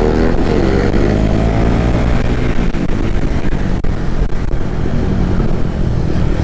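Motorcycle engine running steadily while riding, over a low wind rumble; the engine note changes a little under three seconds in.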